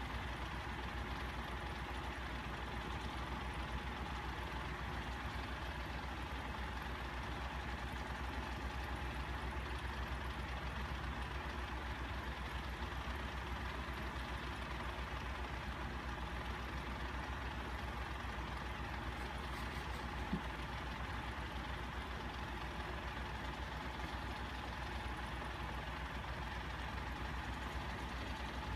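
Steady low machine hum with a faint whine over it. There is one faint click about twenty seconds in.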